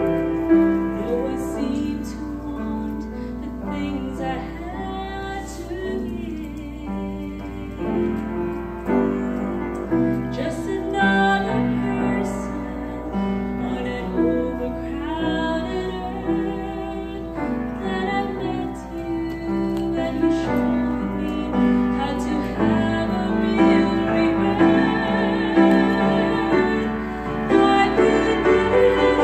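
A woman singing solo into a microphone, with vibrato on held notes, over piano accompaniment.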